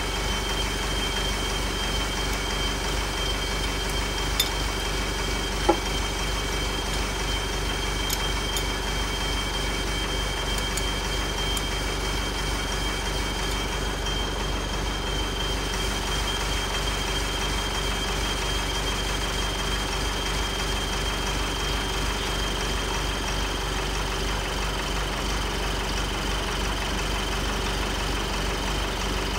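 An engine idling steadily, with a couple of short metal clicks about four and six seconds in.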